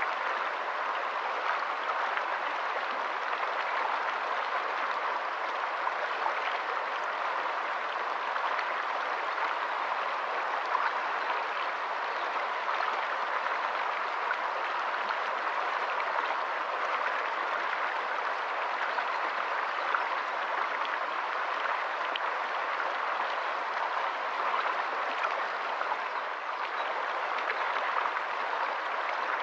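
Shallow stream running over rocks and stones: a steady rush of water.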